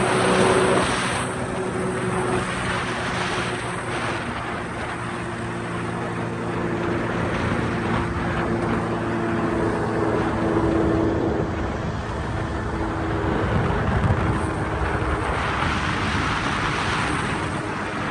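Powered paraglider's rear-mounted engine and propeller running steadily in flight, with its pitch drifting a little. Wind rushes over the microphone, gusting louder near the start and again near the end.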